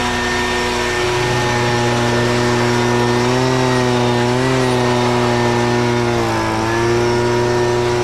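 Gas-powered blower running at high, steady speed with a loud rush of air, blowing dust and hay out of a round baler. Its engine note sags briefly twice.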